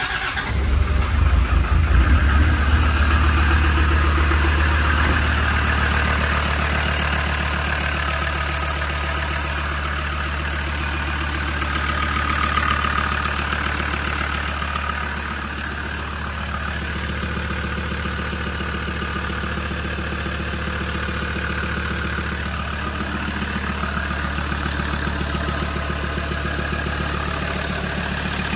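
Land Rover Defender Td5 five-cylinder turbo-diesel catching as it begins, running louder for the first few seconds, then settling into a steady idle. This is its first fire-up after a cylinder-head, camshaft and injector rebuild.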